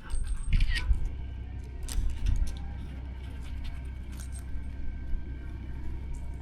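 Small metal gear clinking and jangling in irregular bursts, busiest in the first couple of seconds, over a steady low hum.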